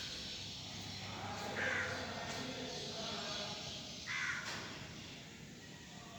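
Crows cawing: a harsh call about a second and a half in and another about four seconds in, over steady background noise.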